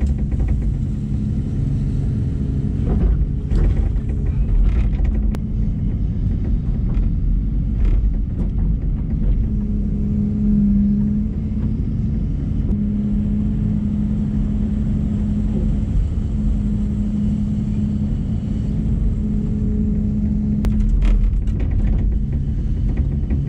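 LiuGong 922E excavator's Cummins diesel engine running steadily under working load, with a few sharp knocks and clanks from the machine working, several near the start and a cluster near the end.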